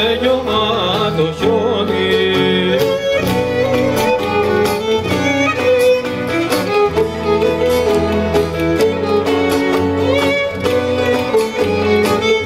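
Live acoustic ensemble music: a violin playing a melody over a cello's lower line. A man's singing voice trails off in the first couple of seconds.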